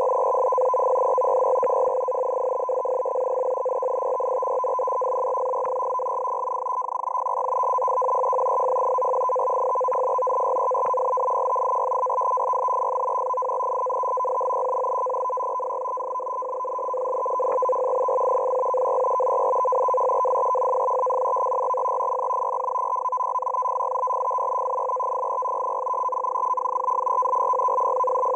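Shortwave digital data transmission, a Russian M42b-type signal on 14380 kHz, received through a web SDR in CW mode: a steady two-tone buzz over band hiss, swelling and fading slowly as the signal fades, with a few faint static clicks.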